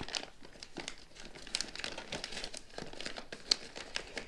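Clear plastic bags of polyurethane bushings crinkling and rustling as hands rummage through them in a cardboard box, in an irregular run of crackles with one sharper tick about three and a half seconds in.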